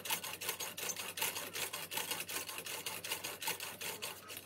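A bore brush on a cleaning rod stroked rapidly back and forth through a rifle barrel, making an even, rhythmic scraping with faint squeaks. The squeak comes from the copper fouling in the bore and is normal; it fades as the fouling breaks up.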